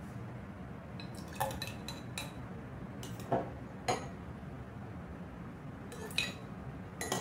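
Metal spoon clinking against glassware as thick gel is scooped and spooned into a glass jar: about half a dozen short, sharp clinks at irregular intervals.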